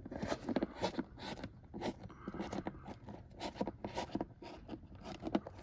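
Fingertips pushing a dash-cam power cable into the gap between the fabric headliner and the rubber door seal. The sound is soft, irregular scratching and small clicks as the cable and fingers rub on the fabric and rubber.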